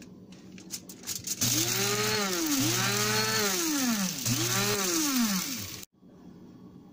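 Small electric spice grinder pulsed three times, its motor whining up in pitch and winding down each time, as it grinds whole roasted coriander seeds to a fine powder.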